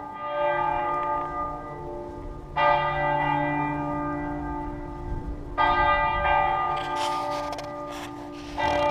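A single church bell tolling slowly, struck three times about three seconds apart. Each strike rings on and fades over a lasting low hum.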